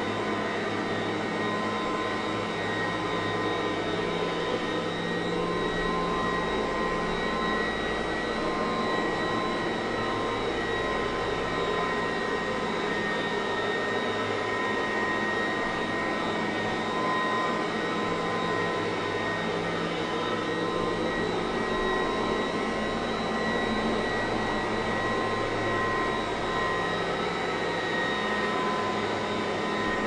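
1987 Kirby Heritage II upright vacuum cleaner running steadily while it is pushed across carpet: an even rush of air with a steady high motor and fan whine.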